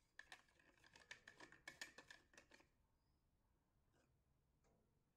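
Near silence, with a few faint clicks and taps in the first half as the scraper's blade and plastic cap are handled and fitted onto the shaft.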